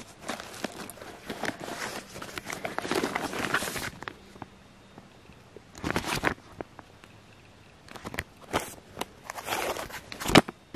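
Plastic food bags crinkling and rustling as hands rummage through a backpack. There is a long stretch of rustling at first, then shorter bursts with a few sharp clicks near the end.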